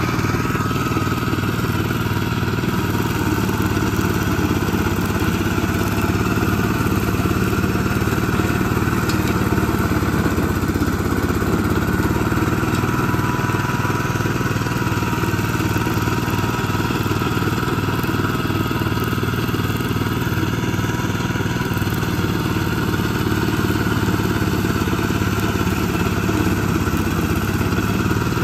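Engine of a circa-1970 Gravely walk-behind tractor running steadily while its front-mounted brush hog spins its stacked rotary blades through brush and tall grass.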